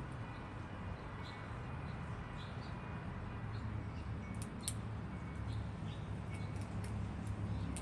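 Fox squirrel gnawing a large walnut held in its paws: small, quick scrapes and clicks of teeth on the hard shell, two or three a second, with a few sharper cracks a little past halfway. A steady low hum runs underneath.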